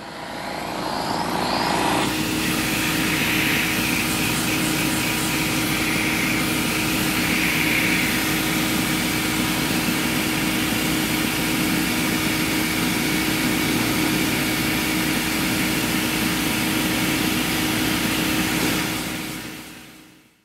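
A small vacuum diaphragm pump running steadily, drawing vacuum for a gripper's silicone suction cups: a continuous mechanical hum with a steady low tone. It fades in over the first couple of seconds and fades out near the end.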